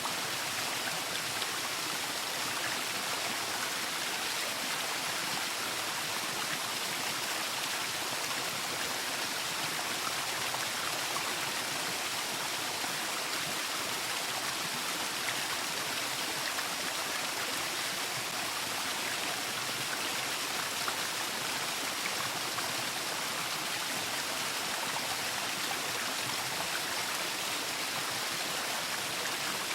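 Waterfall: falling water rushing steadily, an even hiss with no breaks.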